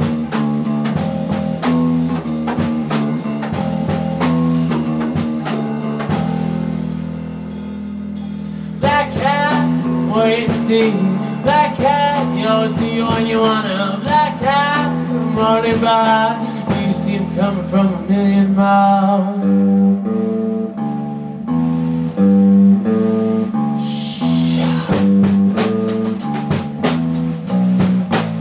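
A small live blues-rock band playing an instrumental passage: drum kit, bass guitar and electric guitar. Through the middle a lead line of bending, wavering notes rides over the band, and in the last third a stepping bass riff comes forward under steady drumming.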